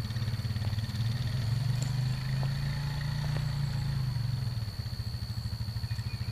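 An engine running steadily, its low hum swelling through the middle and easing off about two-thirds of the way through, with a few faint hoof thuds on arena dirt.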